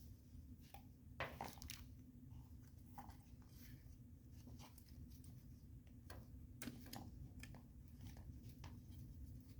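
Faint, scattered crunching and creaking clicks of a soap-lubricated rubber vent window seal being forced by hand into its tight metal track, over a low steady hum.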